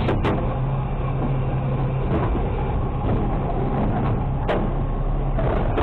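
Automated side-loader garbage truck running steadily with a low engine hum while its arm grabs and lifts a trash cart, with a sharp knock just after the start and another about four and a half seconds in.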